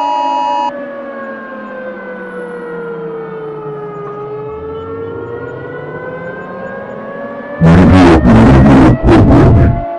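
Electronic two-tone beep cutting off just after the start, then a siren tone with many overtones sliding down in pitch for about three seconds and rising again. About seven and a half seconds in, loud harsh distorted noise cuts in, in several bursts with short breaks.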